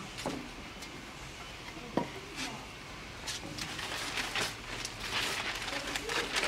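Pots knocking together as a dark traditional steamer pot is seated on an aluminium pot: two sharp knocks with a brief ring, one just after the start and one about two seconds in. Near the end comes a run of crackly rustling from a newspaper being handled.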